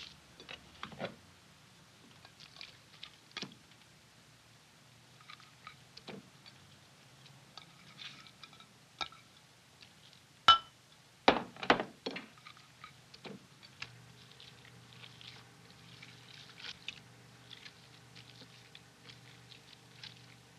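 Bare hands kneading raw minced meat for meatloaf on a plate: soft wet squelches and pats. Halfway through come a few sharp clinks and knocks, the loudest sounds, and a low steady hum comes in soon after.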